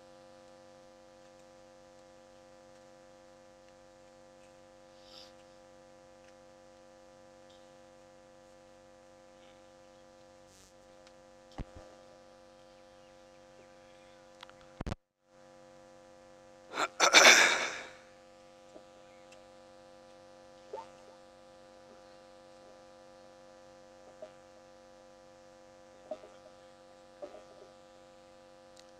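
Steady electrical hum from the sound system, with a few sharp clicks around the middle and a brief cut-out right after one of them. A loud burst of hissing noise comes about two-thirds of the way through.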